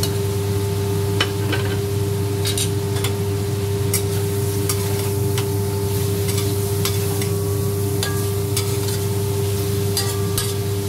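Metal spatula scraping and clinking against a stainless steel wok as shrimp and onion are stir-fried, with irregular sharp clicks over a steady sizzle. A steady low hum runs underneath.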